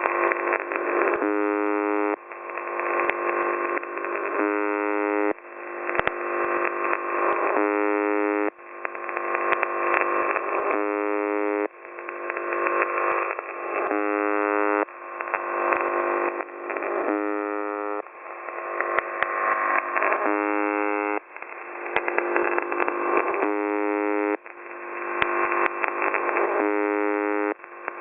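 UVB-76 'The Buzzer' shortwave signal received over radio, thin and band-limited: a repeating cycle roughly every three seconds, each a noisy, distorted stretch that swells in loudness, then about a second of steady buzz tone.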